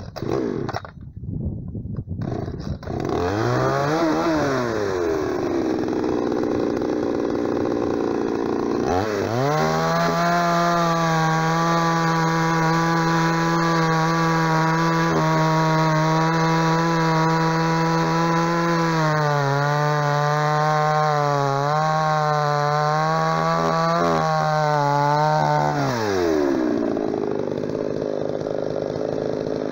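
Cheap 45 cc two-stroke chainsaw (MTX 4540) revving briefly, then running at full throttle from about nine seconds in as it cuts through a birch log. The engine note dips and wavers under load in the second half of the cut, falls back toward idle as the saw comes out of the wood near the end, and rises again at the very end.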